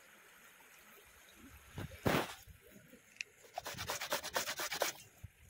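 Carrot being grated on a metal box grater: a quick run of rasping strokes, about eight a second, in the second half, after a single loud scrape about two seconds in.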